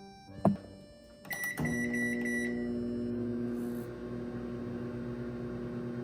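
A microwave oven is shut with a sharp click, its buttons are pressed with a beep about a second and a half in, and it starts running with a steady electric hum.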